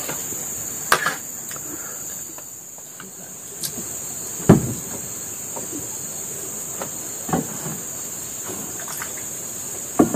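Insects droning steadily in a high, even band, with a few scattered knocks and a louder thump about halfway through.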